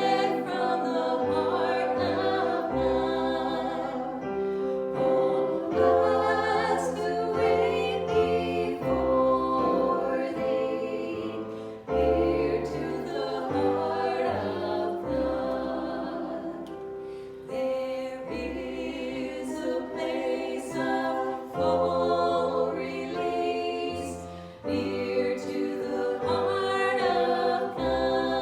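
A choir singing a slow song, held chords changing every second or two over a low bass line.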